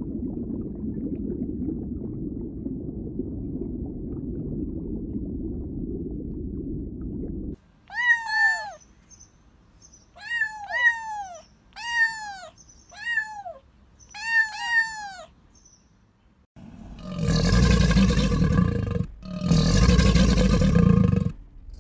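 A low, steady underwater rumble, cut off by a series of domestic cats meowing: about nine short meows, each falling in pitch, in small groups. After a short pause come two long, deep growls from a large animal, each lasting two to three seconds.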